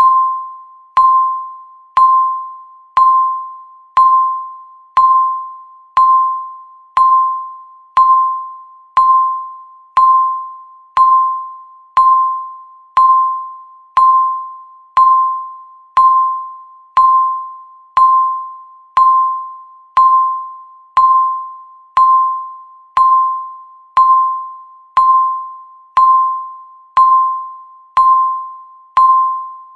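Countdown timer beeping once a second, marking each second of the countdown: a short electronic beep on a single pitch that starts sharply and fades away, repeating evenly.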